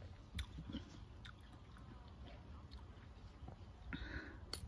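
Chewing and biting watermelon: soft mouth sounds with a few faint clicks, and a crisper bite into the slice near the end.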